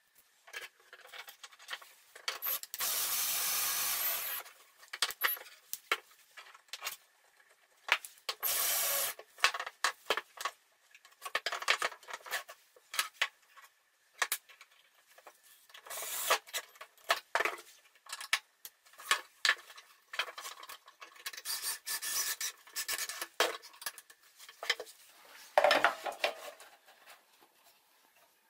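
Plywood jig parts being handled and fitted together: scattered wooden clicks and knocks, with two longer rubs of wood sliding on wood, about three and nine seconds in.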